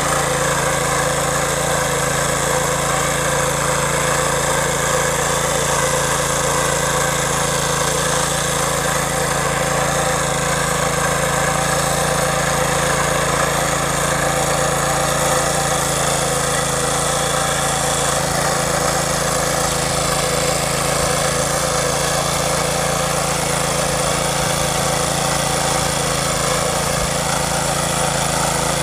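A power weeder's small single-cylinder engine running steadily at one even speed while its rotary tines till soil.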